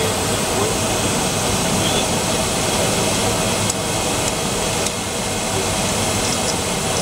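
Boeing 767-300ER's jet engines running at idle, heard from inside the cabin over the wing while the airliner taxis after landing: a steady engine hum and rush of air.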